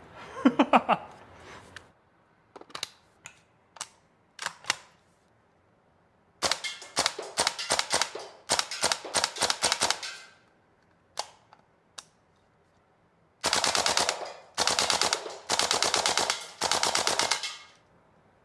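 Tokyo Marui AKM gas blowback airsoft rifle firing. A few single shots come first, then several fully automatic bursts of one to two seconds each, every burst a rapid string of sharp cracks from the gas-driven bolt cycling.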